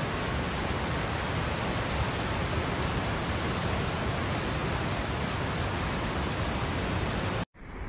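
Steady, even rush of a river in flood, fast muddy water surging through its channel. About seven and a half seconds in, the sound cuts off abruptly for an instant, and a quieter rush of water follows.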